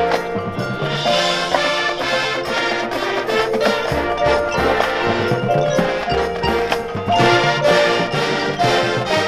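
High school marching band playing its field show: brass holding and changing chords, with front-ensemble mallet percussion and drums.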